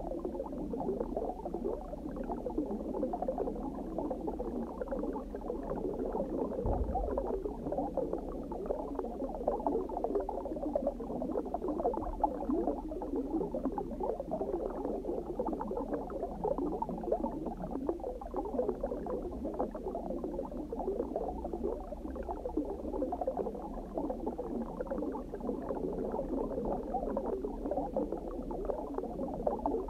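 Steady underwater bubbling ambience: a dense, even stream of bubbles over a low hum, with a soft low thump about seven seconds in.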